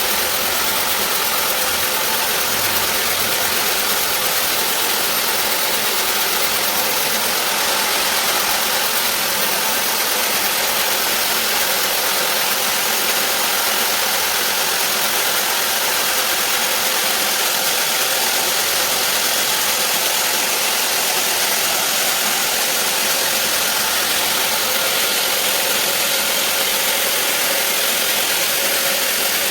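Sawmill band saw cutting lengthwise through a large teak log, making a steady, unbroken noise.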